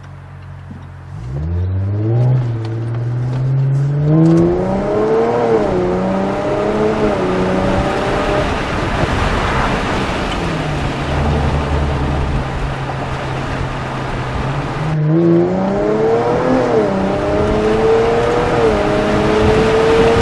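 2017 Jaguar F-Pace's 3.0-litre supercharged V6, fitted with an aftermarket touring exhaust and ECU tune, accelerating hard: the revs climb, drop at each upshift and climb again. It then settles to a low steady drone, and a second hard pull starts about fifteen seconds in.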